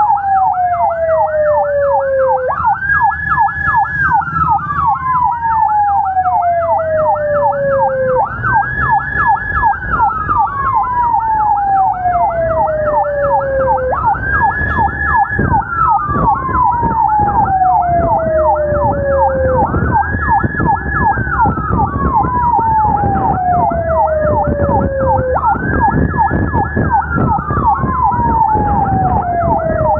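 Two emergency sirens sounding together from a police motorcycle escort with ambulances. One is a fast yelp sweeping rapidly up and down. The other is a slow wail that rises sharply, holds, then falls over about five seconds and repeats; engine and road rumble run underneath.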